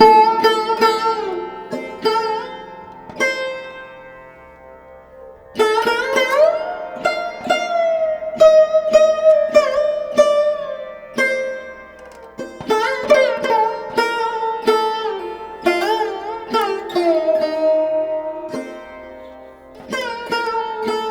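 Background music on a sitar: plucked notes with bending pitches, played in phrases that fade out around a third of the way in before the playing resumes.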